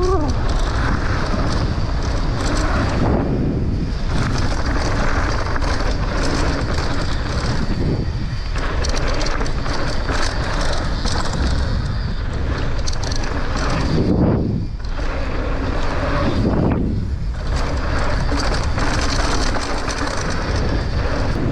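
Mountain bike ridden fast down a dry dirt jump trail, heard from the rider's camera: steady wind rush over the microphone mixed with tyre roar on dirt and the rattle of the bike over rough ground, broken by a few brief lulls.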